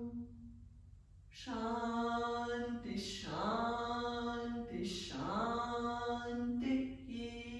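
A woman chanting a mantra in long notes held on one steady pitch, with short slides down and back up between syllables about three and five seconds in.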